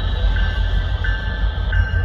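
Railroad grade-crossing bell ringing at an even pace, three strikes, over the low rumble of approaching EMD SD60 diesel locomotives. A higher steady hiss cuts off near the end.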